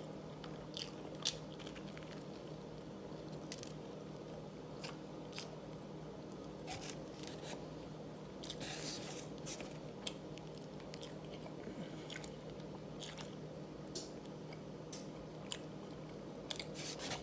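A person chewing and biting into a toasted grilled cheese sandwich close to the microphone, with scattered short crunches, over a steady low hum.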